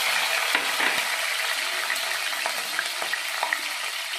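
Chopped green chillies sizzling in hot oil in a kadai, a steady hiss with scattered small crackles, easing a little toward the end.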